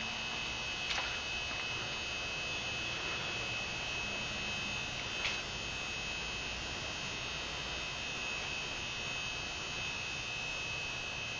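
Steady electrical hum with a constant high-pitched whine over it, with two faint clicks, about a second in and about five seconds in.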